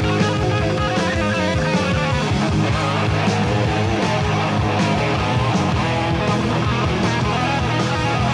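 Live hard rock band playing: distorted electric guitar over bass and a steady drum beat with cymbals. A guitar note is held for about two seconds at the start before the guitar moves on to quicker notes.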